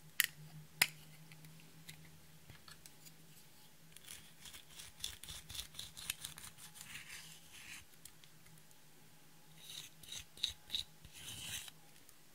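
Two sharp clicks as a plastic eyeshadow compact is opened, then a green plastic spatula scraping and scratching pressed glitter eyeshadow out of its pan in a run of short scrapes. Another, denser cluster of scrapes and ticks comes near the end.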